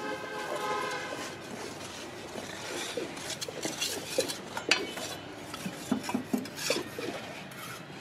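Irregular clinks, knocks and scrapes of metal tools and moulds, with a brief steady pitched tone in the first second or so.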